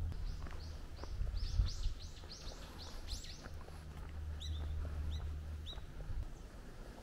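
A small bird calls a quick run of about a dozen high, down-slurred chirps over the first three seconds, then three or four single chirps spaced apart. A low, steady rumble runs underneath.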